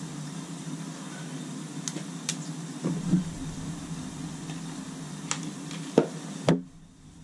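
Crown hot-water boiler running with a steady low hum, with a few light clicks. Two sharp knocks come about six seconds in, and right after the second the hum cuts out suddenly.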